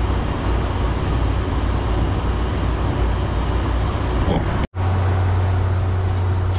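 Steady low rumble of running machinery, like an idling engine. It breaks off abruptly for a moment about two-thirds of the way in, then resumes as a steadier, deeper hum.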